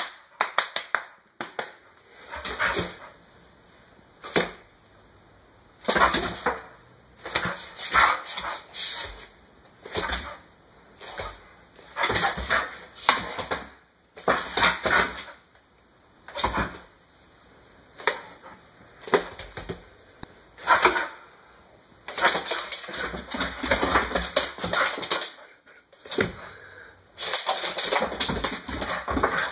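A dog making short grunts and whimpers in irregular bursts, coming thicker and faster over the last several seconds.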